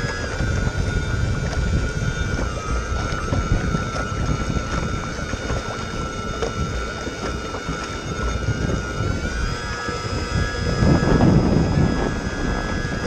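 RT4 remote-control bait boat's electric drive motors whining steadily as it runs out across the lake, the pitch dipping slightly a few seconds in and rising again later. Wind buffets the microphone and choppy water splashes against the hull, briefly louder near the end.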